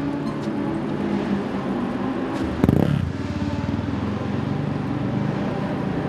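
Motorbike engine running, with one sudden louder rev about two and a half seconds in that falls back to a steady run.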